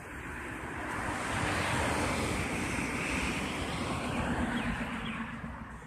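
A vehicle passing by: a smooth rush of noise that swells over about two seconds, then slowly fades away.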